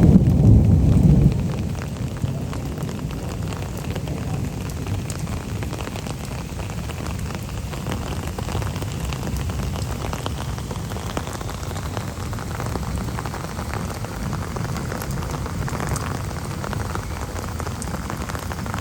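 Steady rain falling, with a loud low rumble of thunder that dies away about a second in.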